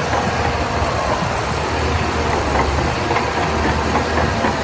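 Heavy earth-moving machine sound effect: a diesel engine running with a steady low rumble under dense rattling noise.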